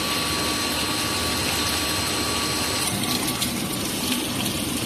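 Kurkure-type corn curl production line running: a steady drone and hiss of extruder and conveyor machinery, with thin whining tones that drop out about three seconds in.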